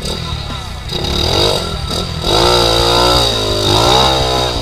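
Trail bike engine revved hard in about four swells, each rising in pitch and falling back, as it is worked loose from deep mud.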